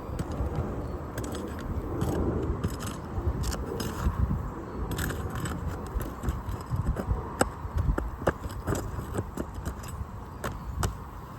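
Metal shingle removal tool (a snake tool) scraping and clicking under asphalt roof shingles, prying at nails and breaking the shingles' seals, in irregular short scrapes and sharp ticks.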